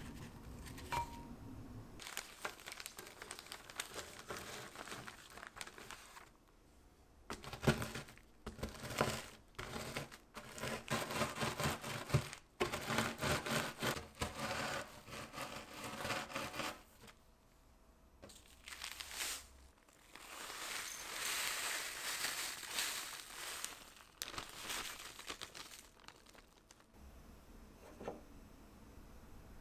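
Digestive biscuits crushed inside a plastic bag with a rolling pin: plastic crinkling and crumbs crackling, in long stretches with a short pause about two-thirds of the way through.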